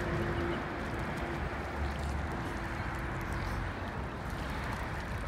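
Steady rushing of wind on the microphone and lake water lapping at the shore, with a faint steady hum that fades out about three and a half seconds in.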